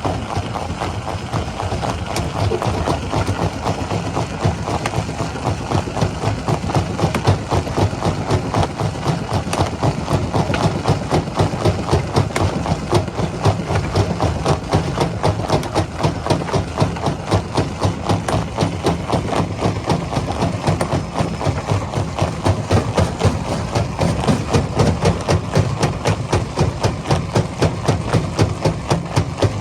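Heavy rock-crushing machinery running with an engine drone and a steady rhythmic pounding of about two to three beats a second, more distinct in the second half.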